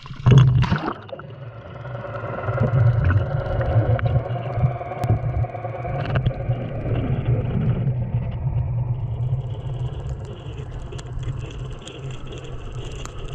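A GoPro in its waterproof housing splashes into the sea just after the start, then records from underwater as it sinks on a jig line: muffled water rushing over the housing with a steady low hum under it.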